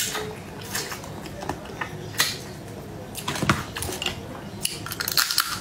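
Close-up eating sounds of spicy shrimp in the shell: irregular cracks, crunches and clicks of shell being bitten and picked apart, with pieces knocking on the plate. The clicks are densest about three and a half seconds in and again near the end.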